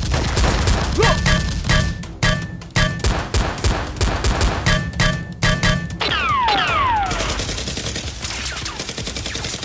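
Rapid gunfire sound effects: bursts of shots several times a second, with short ringing tones between the bursts. Falling whistles, like bullets whizzing past, come about six seconds in.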